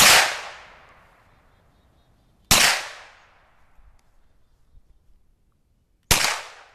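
Three single shots from a Hi-Point 9mm carbine, the second about two and a half seconds after the first and the third about three and a half seconds later, each sharp crack fading out over about a second.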